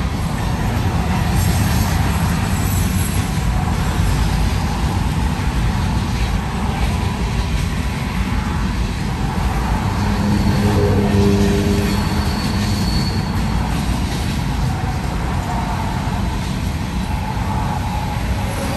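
Freight train of tank cars, covered hoppers and boxcars rolling past with a steady low rumble, heard from inside a car. Near the middle a car on the road adds a brief engine tone.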